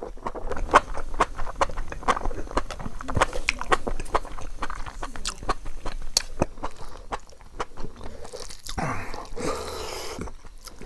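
Close-miked chewing of a mouthful of rice and chicken and mushroom curry eaten by hand: rapid, irregular wet clicks and lip smacks.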